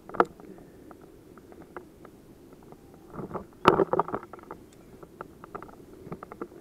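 Sharp clicks and clatter of a tandem paragliding harness being unclipped: a buckle click just after the start, then a louder burst of clicking and knocking of carabiners and buckles about three and a half seconds in, with small ticks of gear handling in between.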